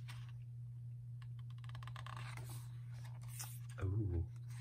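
Pages of a glossy album lyric book being handled and turned: a run of small paper clicks, then soft rustles as a page is turned over.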